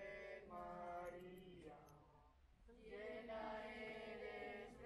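A group of voices chanting together on long held notes, in two phrases with a short break about two seconds in.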